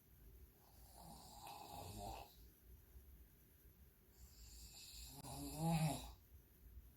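A woman snoring while sleeping on her back with her mouth open: two long snoring breaths about three and a half seconds apart, the second louder.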